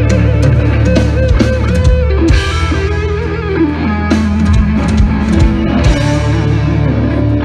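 Live rock band playing loud through a stage PA: electric guitars over drums and bass.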